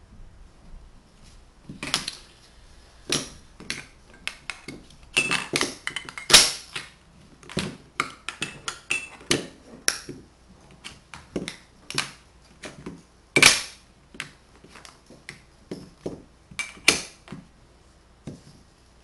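Magnetic wooden blocks with embedded magnets clicking together and clacking down on a tabletop as pieces are handled: an irregular string of sharp wooden clicks and knocks, a few of them much louder snaps.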